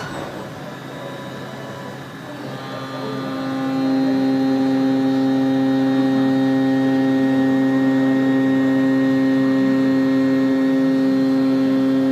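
A 5-axis CNC milling machine running with a steady, high, pitched whine from the spindle and cutter over a low steady hum. The whine builds in about three seconds in and holds at a constant pitch.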